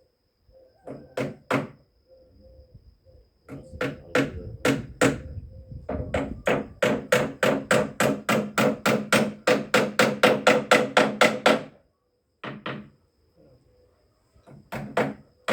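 Hammer blows on wood: a few separate strikes, then a fast, even run of about four blows a second for about six seconds that stops near the end, then a few more blows.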